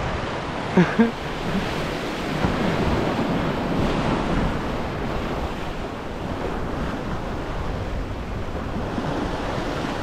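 Ocean swell washing against the rocks, a steady rush, with wind buffeting the microphone. Two short, louder sounds come about a second in.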